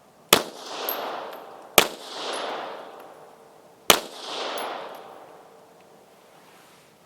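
Three shots from an Astra 300 .380 ACP pistol, about one and a half and then two seconds apart, each followed by a long rolling echo.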